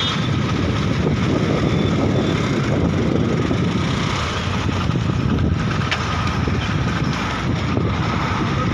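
Motorcycle engine running steadily at low speed, a continuous low rumble.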